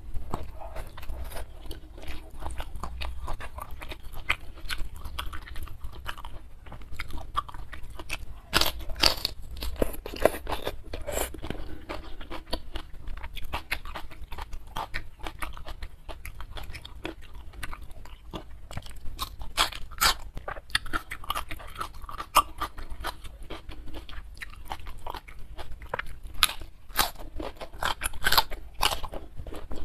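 A person chewing crunchy food close to a clip-on microphone, with steady chewing clicks and louder crunches about nine seconds in, around twenty seconds, and near the end.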